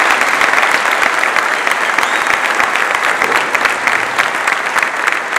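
Audience applauding: dense, continuous clapping that eases slightly toward the end.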